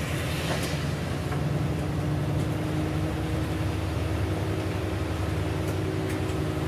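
Bus running on a wet road, heard inside the cabin: a steady low engine drone with tyre hiss, and a steady hum that joins about three seconds in.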